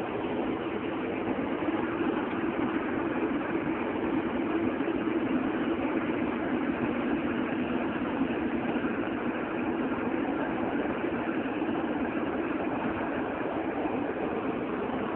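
Engine and road noise inside a moving car's cabin at highway speed: a steady drone over a constant rush of noise.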